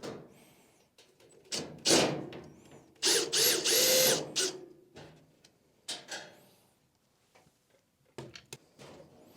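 A power drill-driver runs in short bursts, the longest lasting about a second, amid clicks and clatter of handling the dryer's panels and screws.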